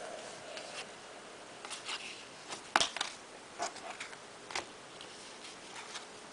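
Trading cards handled and flipped through one by one: irregular light clicks and snaps of card stock, the sharpest about three seconds in.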